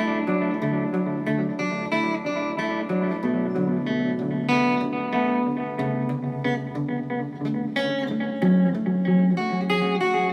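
Heraton 345H electric guitar played through an Echolette E51 tape echo: a continuous run of picked notes and chords. The tape echo is being tested while not yet fully repaired.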